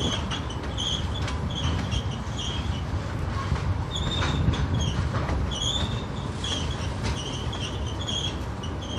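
Freight train cars rolling past with a steady low rumble, scattered clicks and short high-pitched squeals from the wheels repeating about twice a second.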